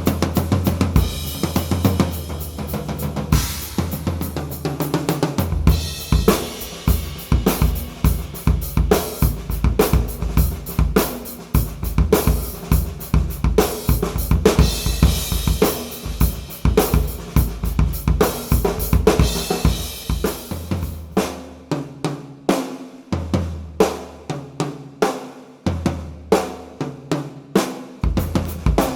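Sakae Trilogy drum kit with maple/poplar/maple shells, played as a steady groove with bass drum, Ludwig LM552 bronze snare and Paiste cymbals and hi-hats. About three-quarters of the way in, the cymbals drop out and the drums carry on alone, with the low drums ringing between hits.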